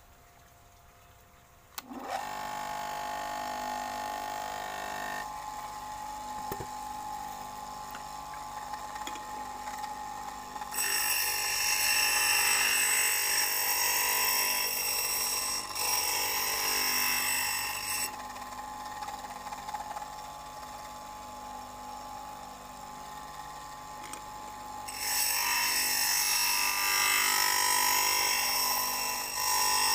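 Electric grinder motor switched on about two seconds in, then running with a steady whine. Twice a carbide-tipped planer blade is pressed against the spinning grinding wheel, adding a harsh, high grinding noise for several seconds each time, the second near the end.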